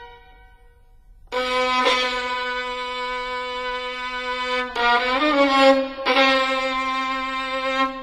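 Slow background music of long held melodic notes, coming in about a second in after a brief quiet gap.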